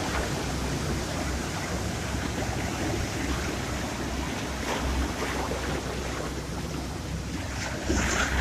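Sea waves washing on a shore, a steady rush with a louder surge near the end.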